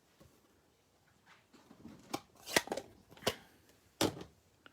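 Papercraft handling noises: faint rustling of cardstock and about four sharp taps and clicks from setting down small rubber stamps and paper pieces, spread between about two and four seconds in.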